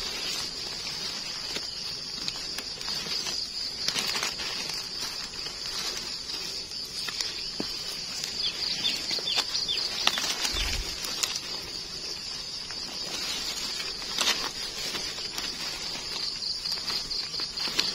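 Dry leaves and twigs rustle and crackle with scattered small snaps as gloved hands pull termite mushrooms out of the leaf litter, over a steady high drone of insects.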